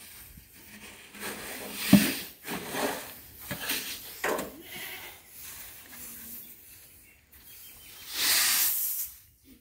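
Parboiled paddy rice being scooped with a metal scoop into a metal basin: dry grain rustling and hissing in short scrapes, with a sharp clank about two seconds in. About eight seconds in, the grain pours out of the basin in one longer, louder hiss as it is spread to dry.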